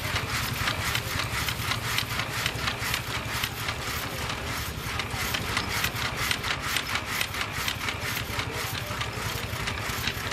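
Machinery running steadily with a fast, even clatter, about five beats a second, over a low rumble.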